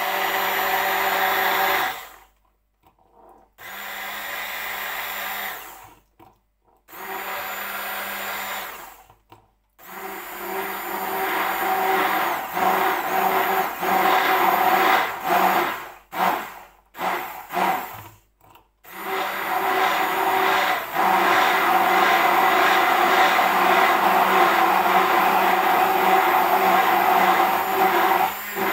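Braun immersion blender whirring in a plastic beaker, emulsifying eggs, lemon juice and sunflower oil into mayonnaise. It is switched on and off in several bursts of a few seconds each, then runs steadily for roughly the last ten seconds.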